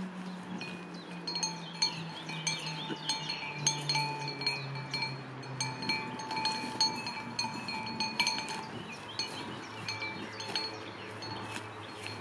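Small bells tinkling and clinking irregularly, with several ringing tones held throughout, over a low tone that steps down in pitch during the first half.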